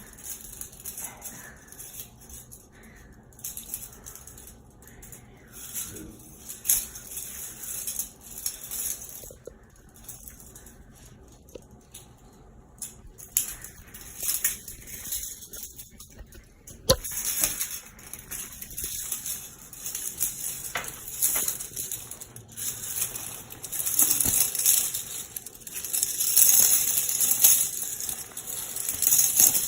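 Metal handcuffs rattling and clinking on and off as they are handled and worked at, with a sharp click partway through and louder jingling toward the end.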